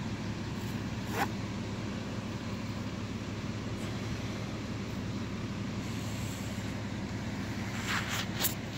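Steady low background rumble, with a single sharp click about a second in and a few short clicks near the end.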